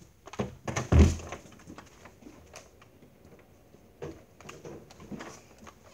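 A few knocks and thumps as someone moves about on a concrete garage floor. The loudest, a dull thump, comes about a second in, and lighter knocks follow near the end.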